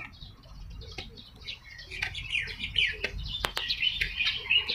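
Small birds chirping in many quick overlapping notes, busiest in the second half, with a few sharp clicks among them.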